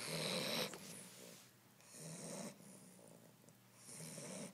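A sleeping dog snoring: three noisy breaths about two seconds apart, the first the loudest.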